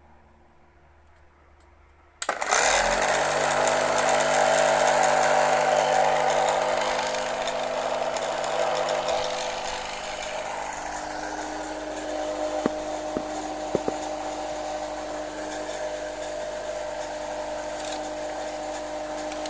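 A home-made 12 V air compressor built from a refrigerator compressor switches on about two seconds in, spins up within half a second and runs with a steady hum. It gets noticeably quieter about halfway through and keeps running evenly, with a few sharp clicks a little later.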